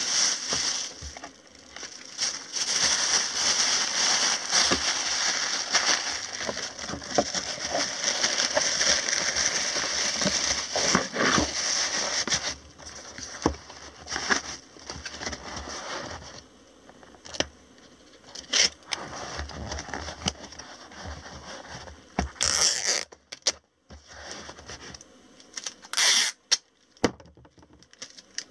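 Packing a parcel by hand: wrapping material crinkling and rustling for about twelve seconds, then scattered clicks, taps and short rustles.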